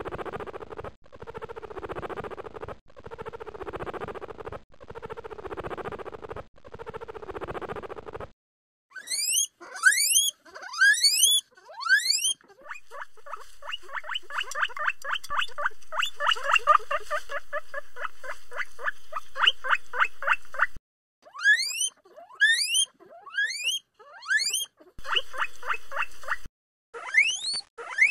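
Guinea pig purring: a vibrating purr in bursts of about two seconds, for the first eight seconds or so. Then guinea pig wheeking: loud, high whistles that rise in pitch, with a long fast run of short calls in the middle and spaced groups of whistles near the end.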